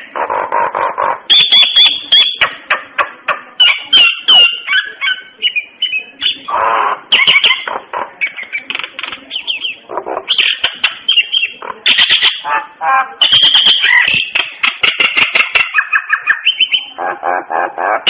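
Common myna singing: a rapid, varied run of whistles, harsh chattering notes and clicks with hardly a pause.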